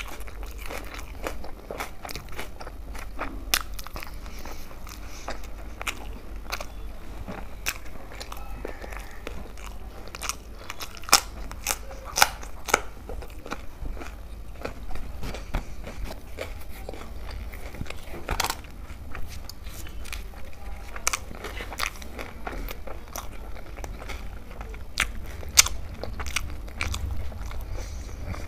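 A person chewing and biting pieces of tandoori roti dipped in dal makhani, close to the microphone: a steady run of sharp clicks and crackles with a few louder snaps.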